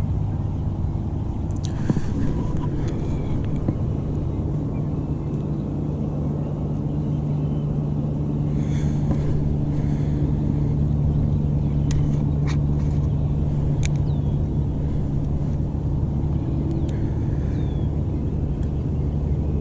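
Steady low engine rumble with an even hum, like a motor vehicle running, and a few faint clicks and short high sounds on top.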